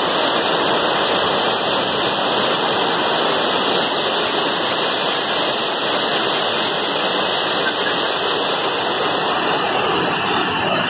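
Waterfall pouring down from high up a rock cleft, a loud, steady rush of falling water.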